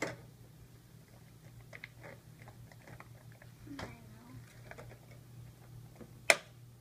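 Light scattered clicks and taps of small plastic toys and a metal tin being handled, with one sharp click about six seconds in, over a steady low hum.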